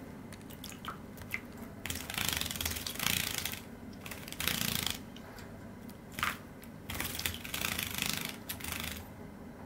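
Cream Java sparrow bathing in a shallow plastic dish of water: several bursts of fluttering splashes, each about a second long, with short pauses between them.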